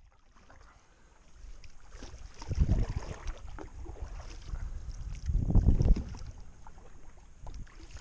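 Canoe paddle strokes in calm water, one about every three seconds, fading in from quiet at the start.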